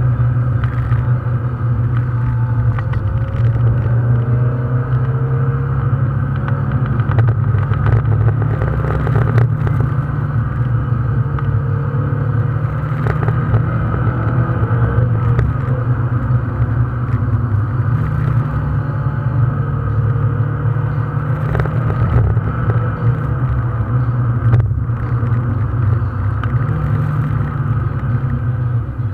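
Car engine and tyre noise heard from inside the cabin while driving, a steady low drone whose engine note drops and rises again a few times as the throttle or gear changes.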